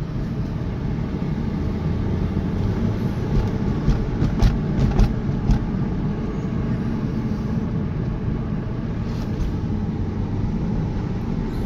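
Steady engine and road noise heard inside the cabin of a 2000 Porsche Boxster S under way at low speed, its 3.2-litre flat-six running behind the seats. A few short knocks come in a cluster around the middle.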